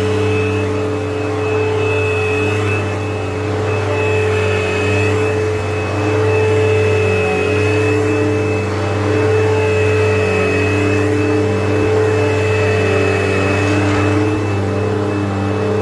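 Upright vacuum cleaner running steadily on a rug: a constant motor hum with a high whine above it, the loudness swelling and easing slightly as it is worked back and forth.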